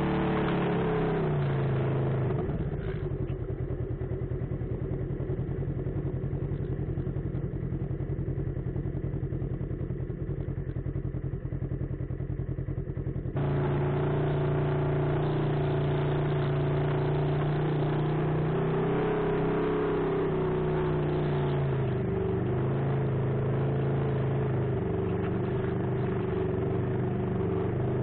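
Off-road vehicle's engine running on a trail. Its revs drop in the first two seconds, and it settles to a quieter, pulsing low-speed run. About 13 seconds in the sound jumps abruptly to louder, steady running, with one brief dip in revs later on.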